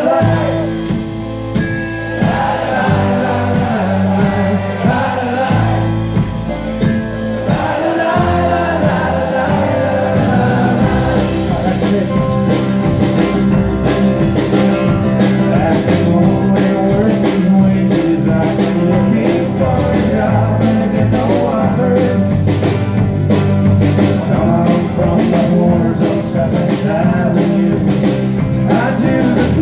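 Live acoustic folk band of guitars, mandolin and upright bass playing, with voices singing the chorus; a steady drum beat comes in about twelve seconds in.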